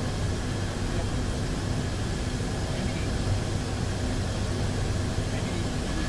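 Steady in-flight cockpit drone of an Airbus A400M, whose four turboprop engines make a low rumble with faint steady whines above it.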